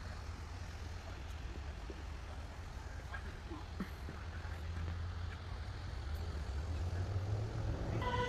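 Low, steady rumble of road traffic, growing slightly louder toward the end.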